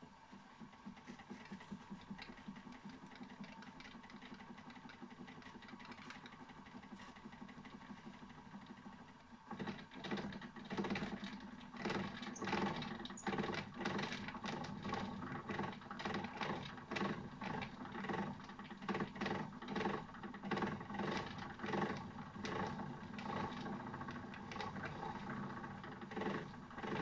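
Wilesco toy steam engine running. It is steady and fairly quiet at first, then about nine seconds in it turns louder, with a rough, uneven beat of strokes while its controls are being worked.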